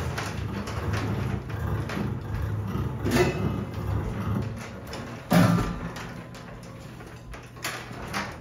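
Free-improvised double bass and percussion: a low bass rumble with scraping and rattling from a metal chain laid across the bass strings, broken by sharp struck hits about three and five seconds in, then quieter.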